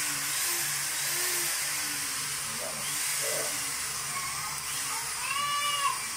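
Electric drill running continuously with a steady high-pitched whir.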